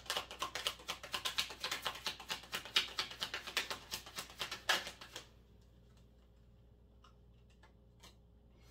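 A deck of tarot cards being shuffled by hand: a quick, rapid run of card clicks and flutters that ends with a sharper snap about five seconds in, followed by a few faint taps as cards are handled.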